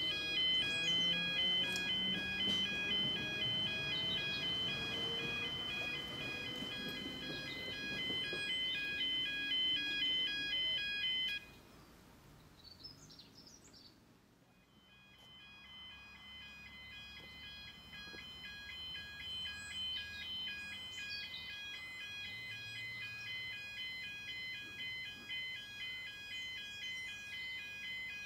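Electronic two-tone level-crossing warning alarm sounding continuously, with the rising motor whine of an approaching electric tram beneath it. The alarm cuts off about eleven seconds in. After a few quiet seconds with birdsong it starts again and keeps going.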